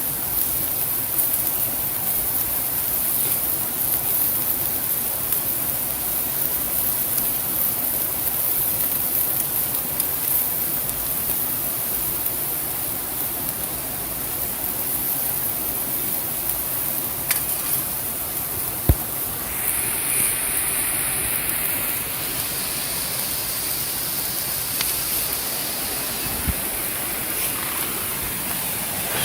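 Steady rushing of flowing water, with a few sharp clicks about two-thirds of the way through and again near the end.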